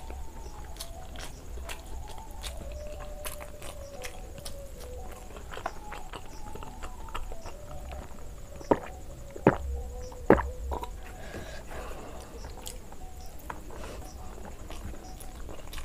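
Close-miked eating sounds of a person eating rice by hand: soft chewing and small wet mouth clicks, with three loud gulps of water about nine to ten seconds in.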